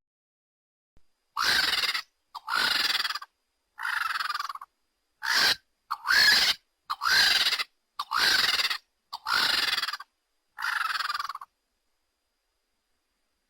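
Pteranodon creature sound effect: a series of about nine short, high-pitched screeching calls, roughly one a second, each bending in pitch.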